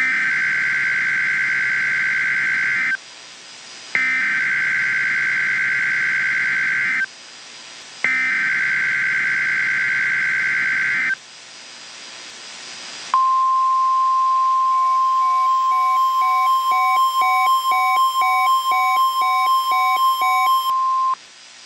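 Emergency Alert System header: three bursts of warbling digital SAME data about 3 s long, each a second apart. A steady 1050 Hz NOAA Weather Radio warning alarm tone then holds for about eight seconds, with a fast beeping laid over its second half, announcing a tornado warning.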